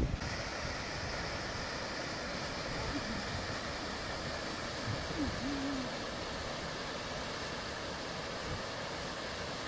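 Stream water rushing steadily along a mountain brook. A short, faint, low hooting call is heard about five seconds in.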